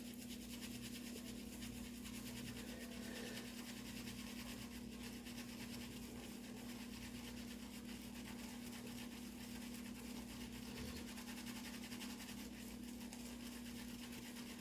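Shaving brush swirling on shave soap to build a lather: a faint, steady scratchy swishing of bristles, over a steady low hum.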